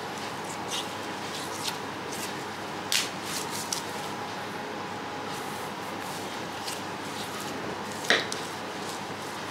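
Butcher's knife cutting and working a block of raw wagyu tougarashi on a plastic cutting board: soft wet squishes of meat being handled, with scattered light ticks and two sharper clicks, about three seconds in and about eight seconds in, over a steady background hum.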